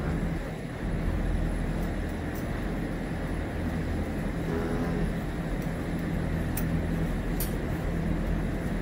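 Steady low mechanical hum from running machinery, with a couple of faint sharp clicks late on.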